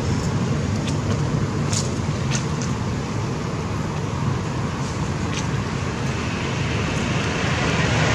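Steady low outdoor rumble, with a few faint short clicks.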